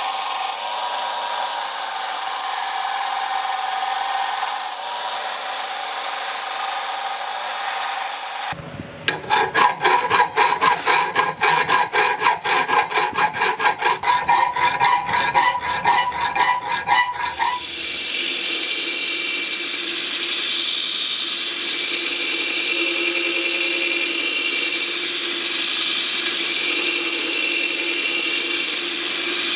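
Power tools working carbon steel: a steady grinding-type noise with a held whine, which gives way about eight seconds in to rapid, regular, ringing strokes, about four or five a second. After about nine seconds of strokes, a steady grinding noise with a different whine returns.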